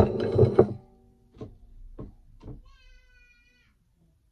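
A loud, drawn-out burp in the first second, followed by three light taps and a brief, steady high-pitched cry about three seconds in.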